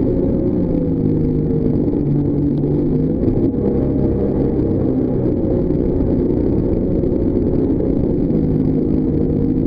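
Jet boat engine running at speed, a steady drone whose pitch drifts a little up and down as the revs change.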